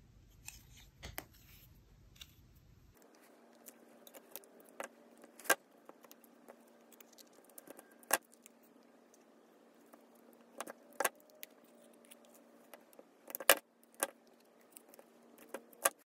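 Small spring-loaded craft snips trimming excess sewing threads and paper edges: scattered sharp metallic snips at irregular intervals, a few louder ones around the middle and near the end, with faint handling of paper between them.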